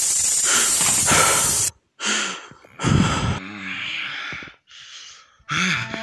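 A loud, harsh hissing noise that cuts off suddenly about two seconds in, followed by a man's short gasps and strained groans in separate bursts.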